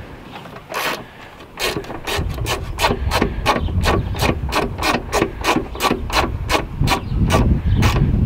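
Ratchet wrench clicking in quick back-and-forth strokes, about three to four a second, undoing the 13 mm top strut-mount nuts. It starts about a second and a half in.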